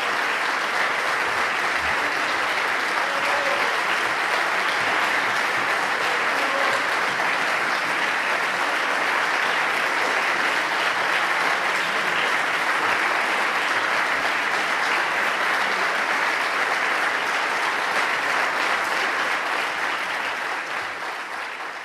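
Audience applauding steadily in a concert hall, a dense even clatter of many hands clapping that begins to fade near the end.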